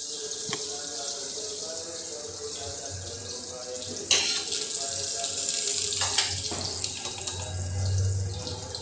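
Cumin seeds sizzling in hot ghee in a stainless steel kadhai: a steady hiss. About four seconds in, a steel ladle goes into the pan with a sudden scrape and stirs, with a couple more scrapes a few seconds later.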